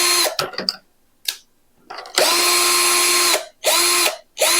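Ralli Wolf RCD21V 21 V cordless drill driver running free, with no load, in short trigger pulls. The motor whines up to speed, runs steadily for up to about a second, and winds down, several times over, with a few sharp clicks in the first gap.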